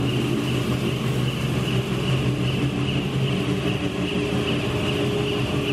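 Steady drone of a car ferry's engines and machinery heard on the vehicle deck: a low hum with a few steady tones and a high whine that pulses evenly.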